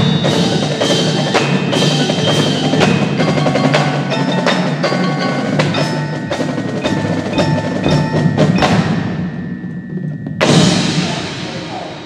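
Marching band front ensemble playing mallet percussion and chimes: a busy run of struck, ringing notes that thins out and fades about nine seconds in. Then one loud struck hit about ten and a half seconds in rings away.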